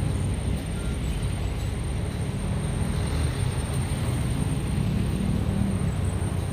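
Heavy machinery engine running steadily, a continuous low rumble.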